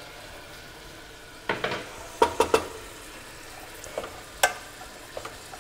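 Wooden spatula stirring raw jackfruit pieces frying in a little oil in a coated kadhai: a faint steady sizzle under the clatter of the pieces, with sharp knocks of the spatula against the pan, a quick run of them from about a second and a half in and two more near the end.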